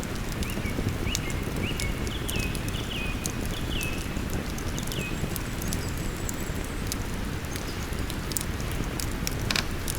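Steady rushing of river water under a campfire's crackle, with frequent sharp pops from the burning wood. Through the first half a bird sings a string of about eight short high notes, roughly two a second.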